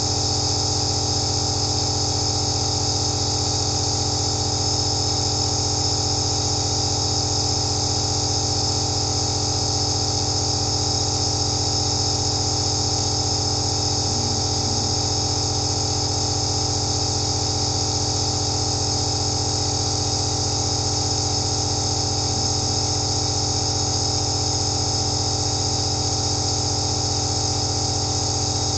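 Nebulizer (aerosol inhaler) machine running steadily: an even motor hum with a hiss of air and mist on top, unchanging throughout.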